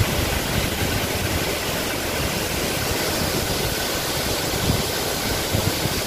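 Large waterfall in heavy flow after days of rain: a steady rush of falling water.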